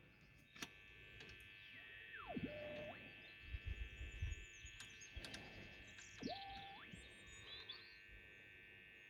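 Faint whistling tones from an EKCO valve radio being tuned between stations: one whistle glides down in pitch about two seconds in and another glides up about six seconds in, over steady faint tones and hiss.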